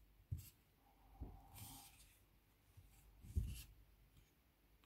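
Faint rubbing and scratching of cotton thread drawn through stitches by a thin steel crochet hook, with a few soft knocks from the work being handled, the loudest about three and a half seconds in.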